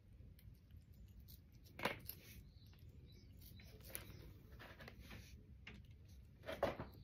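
Faint wet licking and smacking of a tabby cat eating Churu lickable treat from a squeezed tube, with scattered small clicks. Two louder short scuffs come about two seconds in and near the end.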